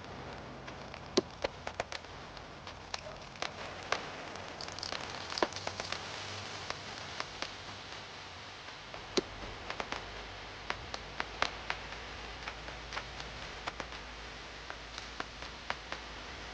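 Steady hiss with many irregular sharp ticks and taps scattered through it.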